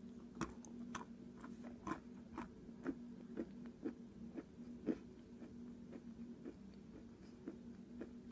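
Chewing a mouthful of water-soaked chalk: a bite, then a run of crisp, gritty crunches about two a second, thinning out after about five seconds.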